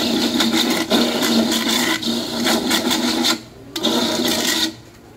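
Electric coconut grater running and grating coconut meat with a harsh, steady rasp over a low hum. It breaks off briefly about three and a half seconds in, then stops near the end.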